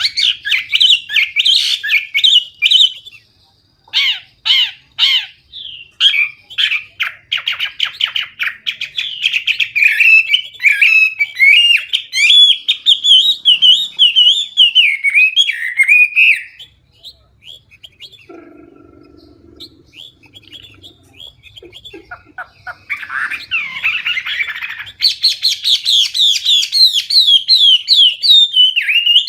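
Chinese hwamei (melodious laughingthrush) singing a loud, clear song of rapid, varied whistled phrases. The song breaks off for several seconds past the middle, then resumes strongly near the end.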